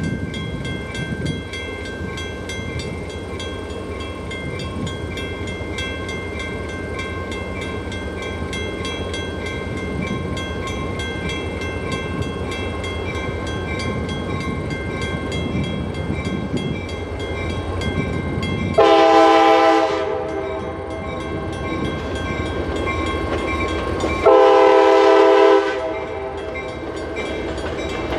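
Diesel freight train running with a steady low rumble, led by an EMD SD40-2 locomotive. Its air horn sounds two long blasts, about 19 and 24 seconds in, the second a little longer.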